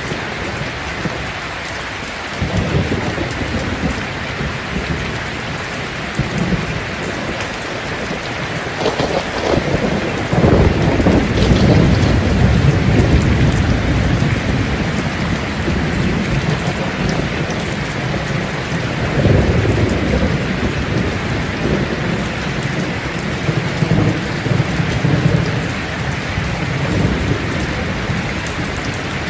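Steady heavy rain with rolling thunder that rumbles up several times, loudest about ten to thirteen seconds in.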